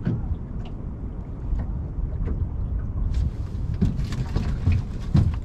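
Wind rumbling on the microphone, with small waves lapping and knocking against the hull of an anchored boat in choppy water.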